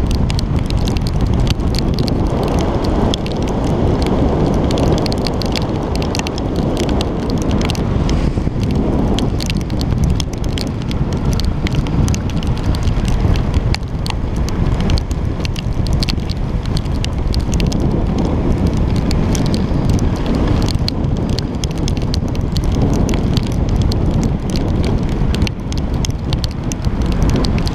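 Wind rushing and buffeting over the camera microphone on a moving bike in the rain, with raindrops crackling and ticking against the camera.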